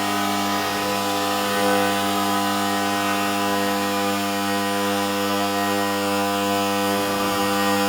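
DJI Mavic Air 2 quadcopter flying, its propellers giving a steady hum with several even tones.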